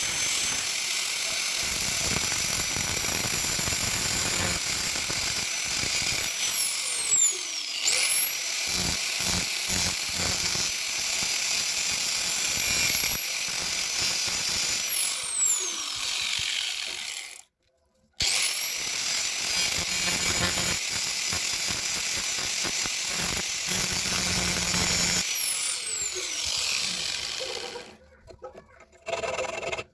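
Electric drill motor of a homemade geared drill press running with a steady high whine. It is switched off three times, its pitch falling as it winds down, and started twice in between, its pitch rising as it spins back up. After the last stop a few clicks are heard.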